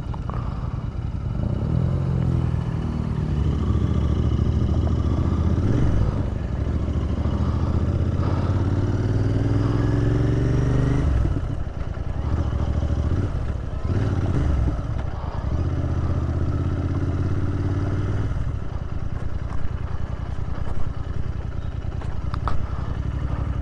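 Royal Enfield Interceptor 650's parallel-twin engine pulling away and accelerating through the gears: the revs climb, drop at each upshift and climb again, then ease off near the end.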